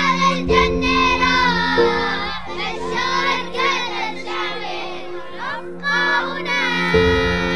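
Children's voices singing together over held music chords.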